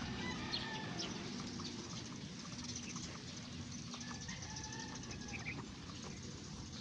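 Farmyard poultry calling faintly, short clucks and calls over a steady low background noise.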